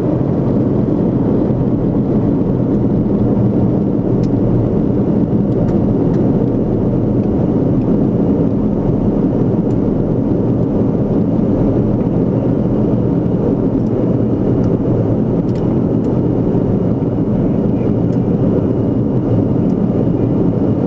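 Antonov An-22's four Kuznetsov NK-12 turboprops with contra-rotating propellers, droning steadily as heard inside the cockpit on final approach.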